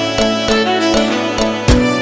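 Background music: an instrumental with held melody notes, and a beat of low drum hits coming in near the end.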